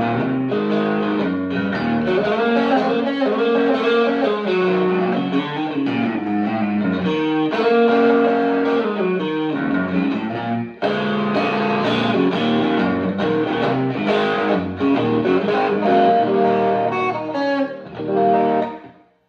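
Electric guitar played through a Fender Blues Junior tube amp, a run of single notes and chords. It breaks off briefly about eleven seconds in and stops near the end.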